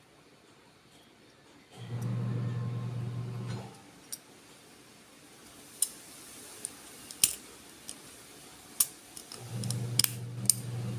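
Sharp plastic clicks and snaps from a two-pole wall switch's parts being handled and fitted during reassembly, several of them spread over the second half. A low steady hum comes in twice, each time for about two seconds.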